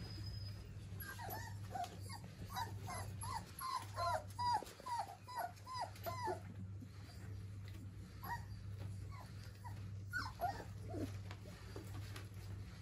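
Four-week-old German Pinscher puppies whimpering: a rapid run of short, high whines through the first half, then a few scattered cries later on.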